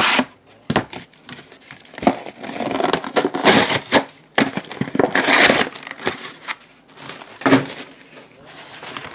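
Plastic wrapping crinkling and crackling as a box is unwrapped and handled, in irregular bursts, with a few sharp knocks.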